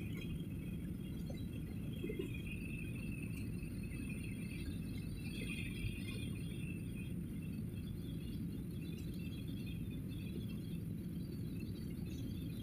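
Jet airliner cabin noise during the landing approach: a steady low rumble of the engines and airflow, with faint, scattered high-pitched chirps over it.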